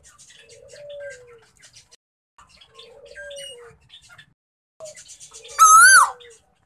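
Male Asian koel giving three soft, low coos, then near the end one loud call that rises and falls in pitch.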